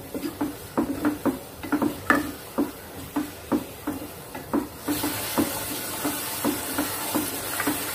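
Wooden spatula stirring chicken pieces through a thick yogurt-masala gravy in a non-stick pan over a high gas flame: quick scraping strokes, about four a second. A steady sizzle joins about five seconds in as the pan heats through.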